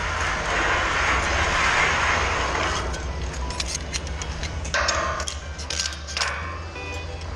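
Steel-erection site noise: a rushing sound that swells and fades over the first three seconds, then scattered metal clinks, over a steady low hum.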